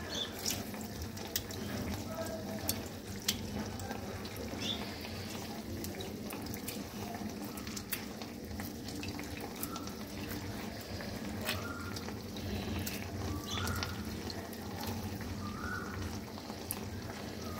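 Fish curry simmering in a pan on the stove: a steady sizzle with scattered small pops.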